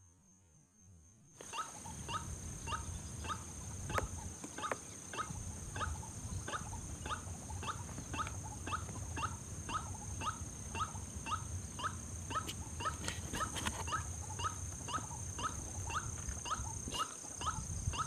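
White-breasted waterhen calling, a steady run of short repeated 'kru-ak' notes at about two a second that starts suddenly, over a steady high whine.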